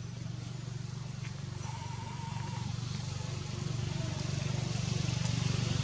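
A low, steady engine hum with a fine pulsing ripple, growing slowly louder, with a faint wavering high call about two seconds in.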